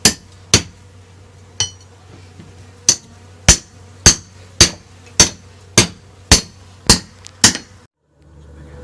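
Hammer striking about a dozen sharp blows. They come irregularly at first, then settle into a steady rhythm of about two a second, and stop abruptly near the end.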